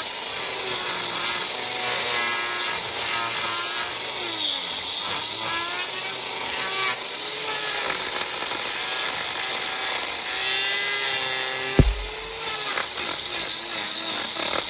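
A power tool cutting through material, its pitch wavering as it works under load, with a single sharp thump about twelve seconds in.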